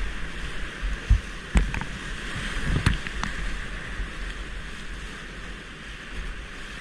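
Whitewater rapid rushing and churning around a kayak, with a few sharp knocks and splashes in the first half as the boat and paddle hit the waves.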